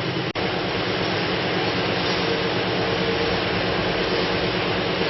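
Bottom-seal plastic bag making machine running with a steady mechanical noise.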